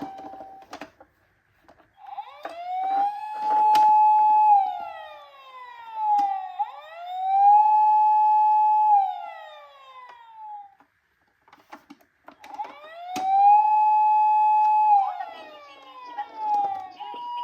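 Toy emergency vehicle's electronic wail siren going through three cycles, each rising to a steady high tone, holding and then falling away, with a short pause before the third. Near the end another toy's two-tone hi-lo siren starts, and a few small clicks sound about four seconds in.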